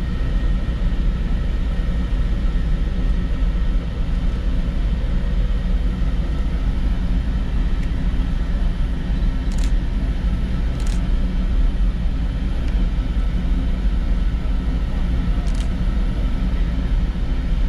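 Shay geared steam locomotive standing with steam up, giving a steady low rumble with a faint steady high tone over it. A few sharp clicks come in the second half.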